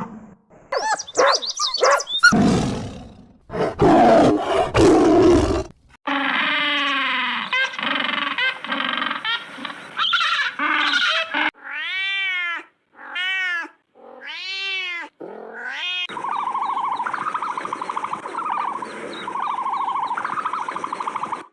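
A run of different animal calls one after another, each clip distinct: rough calls in the first few seconds, then pitched calls, three short rising-and-falling cries near the middle, and a steadier stretch of calling toward the end.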